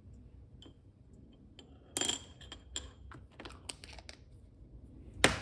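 Small metal spatula clinking and scraping against a little ceramic dish of urushi lacquer. A louder ringing tap comes about two seconds in, then a run of light clicks and a sharp click near the end.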